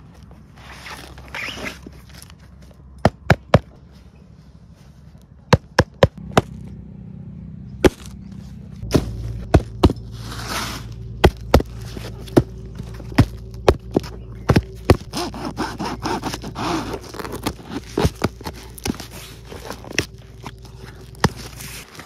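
Cardboard boxes and packaging being handled and opened: cardboard scraping and rustling, with many sharp knocks and taps at irregular intervals. A low steady hum runs underneath through the second half.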